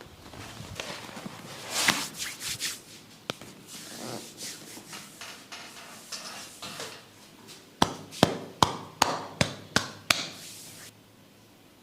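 Massage tapping on a person's head: rubbing and scattered soft taps, then near the end a quick run of about seven sharp, evenly spaced taps, roughly three a second.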